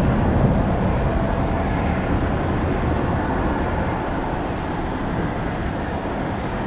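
Boeing 757-200F freighter's twin Pratt & Whitney PW2040 turbofans at climb thrust: a steady low jet rumble that slowly fades as the aircraft climbs away.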